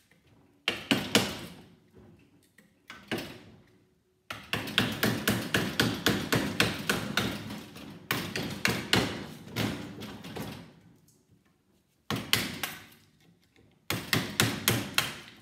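Metal hammer striking a screwdriver wedged into a microwave oven transformer held in a bench vise, knocking out the copper winding. A few single blows come first, then long runs of quick, repeated strikes with short pauses between them.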